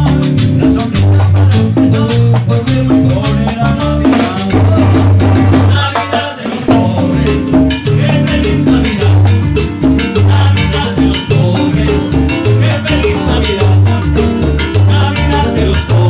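Live Latin dance band playing an instrumental passage: timbales, saxophone, bass and keyboards over a steady dance beat, with a short break in the bass about six seconds in.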